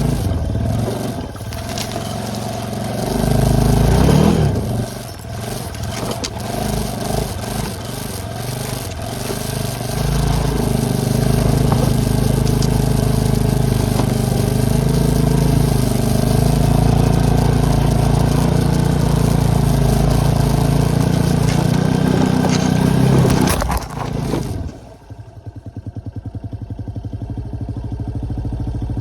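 ATV engine running while driving through deep fresh snow, surging briefly early on and then pulling steadily, before dropping suddenly near the end to an even, throbbing idle.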